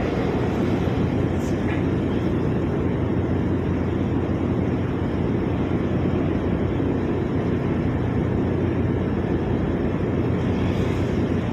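Ship's engines and machinery running with a steady low drone.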